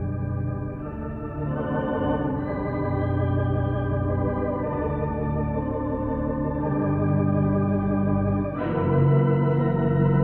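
Hilsdon 29-rank theatre pipe organ playing slow held chords that change every second or two, with a fuller, louder chord coming in near the end.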